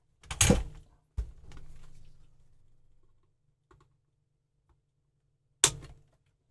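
Side cutters snipping component leads on a circuit board: a loud cluster of snaps about half a second in, another sharp snap about a second in followed by a fading rustle, and one more snap near the end.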